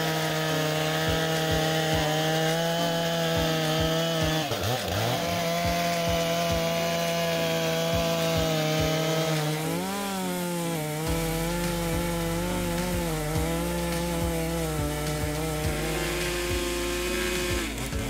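Large two-stroke chainsaw running at full revs while cutting into a tree trunk. Its pitch dips briefly about four seconds in and wavers again around ten seconds.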